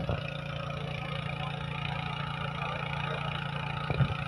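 A small engine running steadily at constant speed, with a brief knock about four seconds in.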